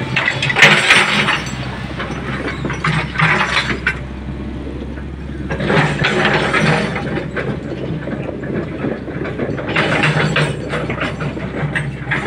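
Steel grating bars of a bridge deck rattling and clanking in four bursts as the deck is crossed, over an engine running steadily.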